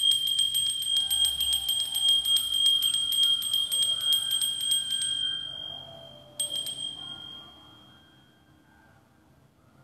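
Altar bell shaken rapidly, giving a continuous bright ringing for about five seconds that dies away, then a second short shake about six and a half seconds in. This is the ringing that marks the elevation of the chalice at the consecration.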